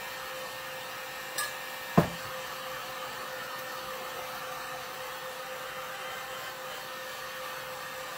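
Heat gun blowing steadily with a constant hum, drying a sealing coat of pigment infuser on a painted box lid; a light click and then a sharp knock about two seconds in.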